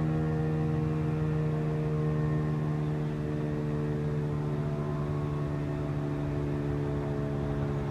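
Federal Signal RSH-10 Thunderbeam outdoor warning siren sounding its alert tone: a steady wail with a deep undertone, its pitch sagging slightly in the second half.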